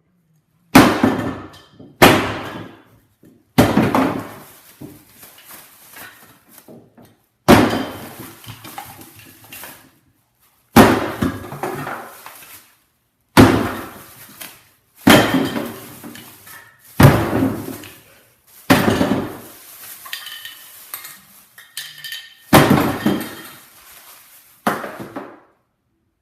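A series of about eleven loud, sharp crashes at uneven intervals, each ringing away over a second or two.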